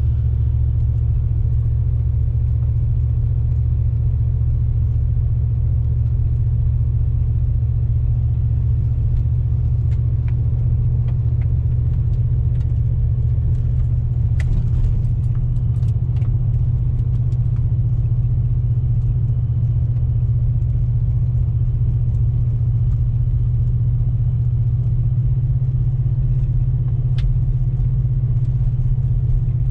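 Cadillac DeVille's Northstar V8 with a Thrush aftermarket exhaust and deleted resonator, heard from inside the cabin as a steady low exhaust drone while cruising at an even throttle, with a few faint ticks.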